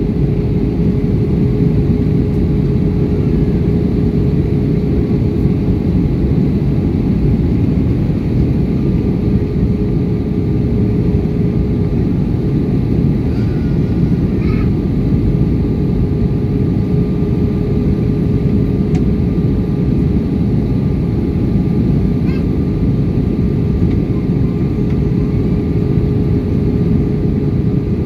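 Airbus A320-200 cabin noise heard from a window seat during descent: a steady roar of the engines and airflow with a constant hum running through it. A fainter, higher hum joins about nine seconds in.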